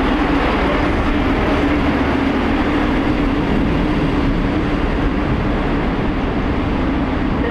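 A train running in the station: a steady noise with a constant hum under it, unchanged throughout.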